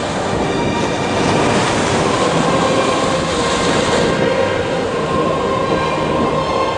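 Storm wind and heavy surf making a loud, steady roar, with a faint steady whine running through it.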